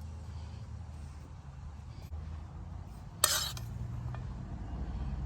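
A single short clink of a utensil against a dish about three seconds in, over a low steady hum.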